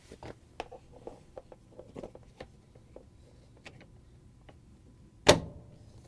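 Whirlpool refrigerator's plastic front grill being fitted onto its metal grill clip: scattered light plastic clicks and taps, then one loud knock about five seconds in as it is pushed home.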